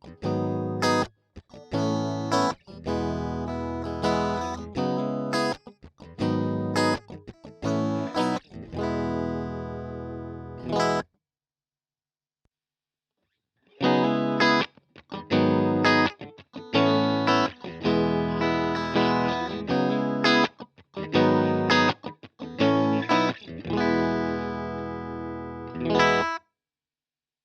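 Electric guitar played through a Strymon Iridium amp modeller: a run of struck chords, each left to ring and then cut off sharply, with about three seconds of silence midway.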